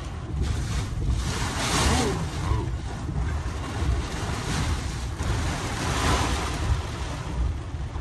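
Severe thunderstorm wind gusting with wind-driven rain, buffeting the microphone in a pulsing low rumble. The wind surges louder about two seconds in and again around six seconds.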